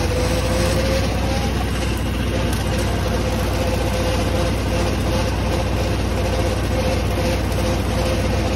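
Władimiriec T-25 tractor's two-cylinder air-cooled diesel engine running steadily, with a steady whine over it that rises slightly in pitch in the first second.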